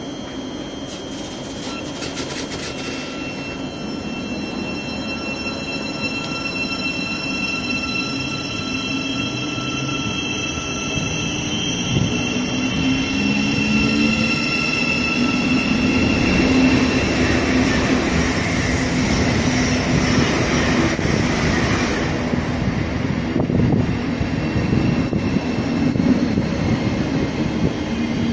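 Thameslink Class 700 electric multiple unit pulling away from the platform. Its traction motors whine, with a tone that rises in pitch from about halfway through as it gathers speed. Wheel and rail noise grows louder, with a few clicks near the start.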